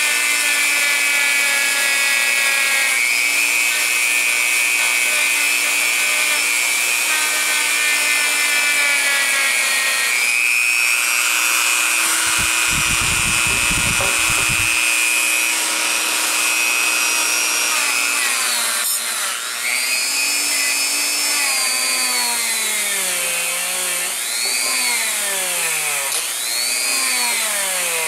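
Dremel rotary tool with a soft stainless steel wire brush running at high speed to clean up a broken braze joint on old cut nails, giving a steady high whine. In the second half its pitch dips and rises again several times.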